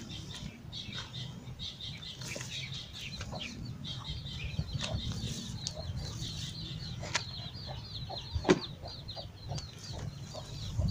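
Loose potting mix of soil and carabao manure rustling and pattering as it is tipped by hand from a plastic basin into a pot and pressed in with the fingers, with a sharp knock about eight and a half seconds in. Birds chirp rapidly and steadily in the background through most of it.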